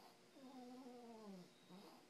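Faint snoring with a drawn-out pitched tone that falls in pitch: one long snore starting about a third of a second in and lasting about a second, and the next one starting near the end.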